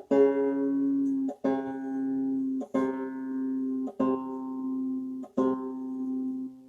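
Five-string banjo strummed open about five times, roughly once every second and a half, each chord left to ring while the tuning pegs are adjusted: retuning from open G to open C tuning. The ringing fades near the end.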